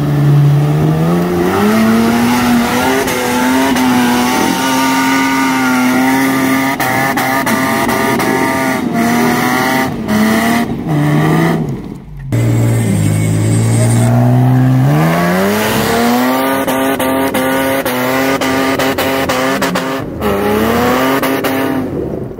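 Nissan Patrol 4WD engine revving hard and held at high revs while climbing a steep rutted track. About halfway through the revs drop away, then build and hold high again, with a few sharp knocks along the way.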